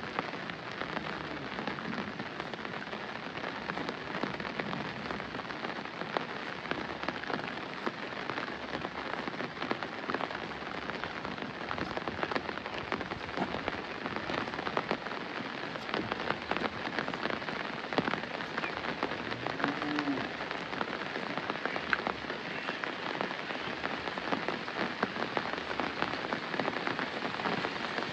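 Steady rain falling, with many distinct close drop hits among the even wash. A brief faint call rises and falls about twenty seconds in.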